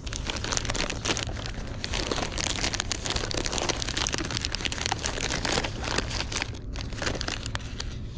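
Plastic soft-plastic lure packets crinkling and rustling as hands rummage through them in a tackle bag: a continuous irregular crackle over a low steady rumble.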